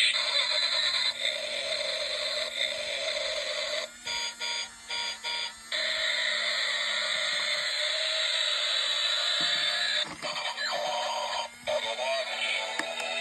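Background electronic music with bright, beeping synth tones. It stutters on and off a few times about four seconds in.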